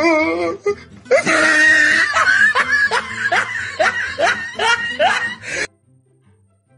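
A person laughing hard in a quick run of rising bursts, which cuts off suddenly near the end.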